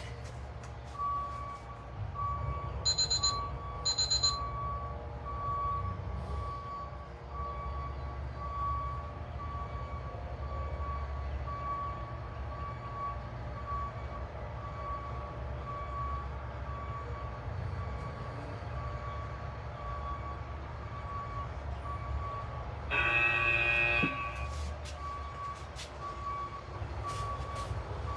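A vehicle's reversing alarm beeping steadily at one pitch, about once a second, over a low engine rumble. Near the end a louder sound lasts about a second.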